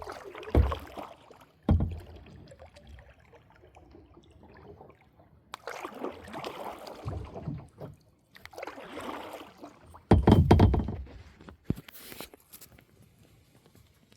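Water sloshing and swishing in several separate strokes, with a few low thumps and bumps. The loudest bump comes about ten seconds in.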